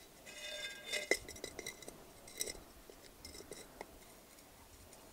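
Pliers clinking and snapping against the bottom of an upturned terracotta pot as bits are broken away around its drainage hole. A short ringing clink comes about a third of a second in, then scattered small clicks and chinks.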